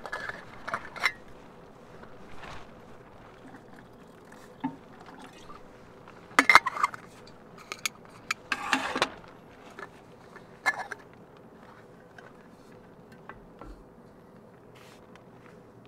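Light metal clinks and knocks of a kettle and cookware being handled on a wood-burning tent stove, loudest in clusters about six and a half and nine seconds in, over scattered small clicks.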